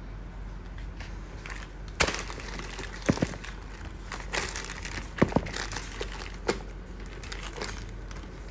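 Clear plastic bag crinkling and rustling as leather dance shoes are handled inside it, starting about two seconds in, with a few sharp clicks, the loudest about three and five seconds in.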